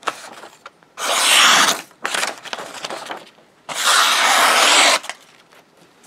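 A Schrade SCH306 folding knife's blade slicing through a sheet of printer paper: two long slicing strokes of about a second each, one about a second in and one past the middle, with a shorter cut between them.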